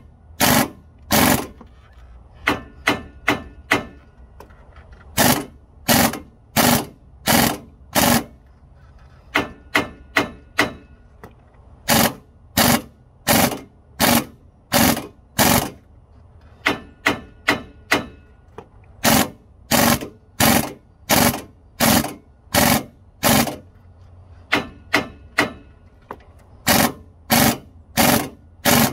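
Impact wrench hammering in short trigger bursts, about one or two a second with brief pauses, turning the screw of a C-frame ball joint press to force a new lower ball joint into the control arm.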